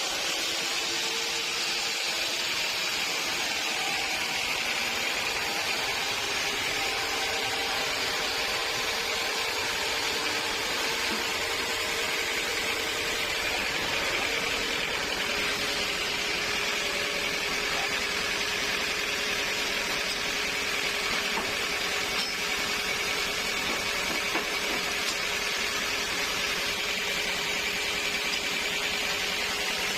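Sawmill machinery running steadily, a constant noisy hum with a faint high whine and no breaks.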